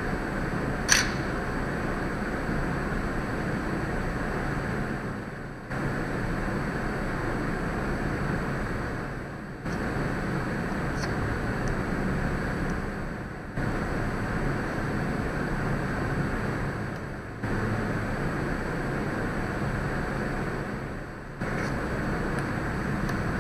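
Steady background noise with a low hum, fading down and cutting back in about every four seconds; a single sharp click about a second in.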